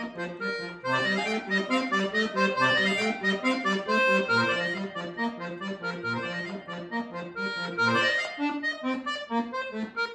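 Chromatic button accordion played solo: a fast melody of short notes over a bass line, getting louder about a second in.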